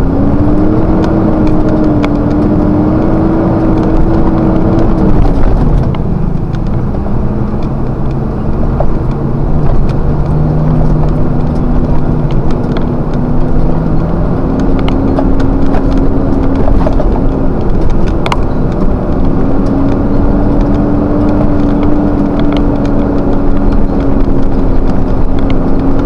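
Vehicle engine droning steadily, heard from inside the cab while driving. Its pitch drops about five seconds in, then climbs slowly again.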